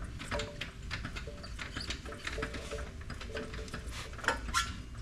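Irregular light clicks, scrapes and brief faint squeaks of motorcycle parts being handled and shifted as the rear wheel is worked free, with a couple of louder clicks near the end.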